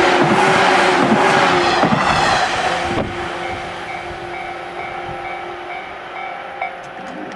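Electric train passing over a level crossing, its wheels clacking over rail joints, with the last cars clearing about three seconds in. After it has gone, the level crossing warning bell goes on dinging at an even beat and stops shortly before the end.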